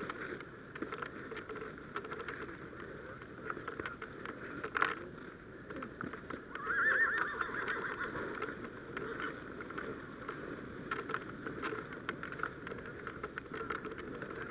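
A horse whinnies once about seven seconds in, a wavering call lasting about a second and a half, over footsteps crunching through snow and dry reeds.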